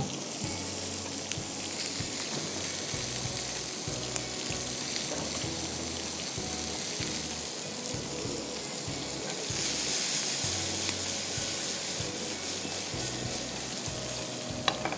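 Fish and vegetables frying in oil in pans on a gas hob: a steady sizzle that grows louder for a couple of seconds around the middle. A light utensil click comes near the end.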